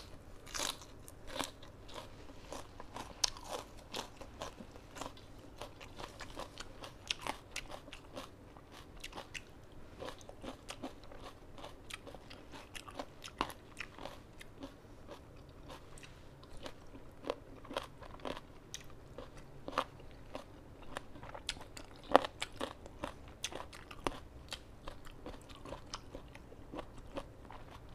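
A person chewing and crunching mouthfuls of raw lettuce and fresh vegetables wrapped with spicy salad, many small crisp crunches and wet mouth clicks at an irregular pace, with one sharper crunch about two-thirds of the way through.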